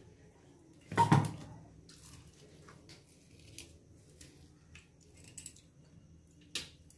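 Gondhoraj lemon wedges squeezed by hand over a plate: faint squishing and small clicks of juice and peel, with a sharp knock about a second in and a shorter one near the end.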